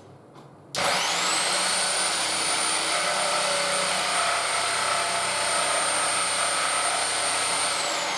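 Electric power tool switched on about a second in: its motor spins up to a steady high whine and runs evenly for about seven seconds, then starts to wind down near the end.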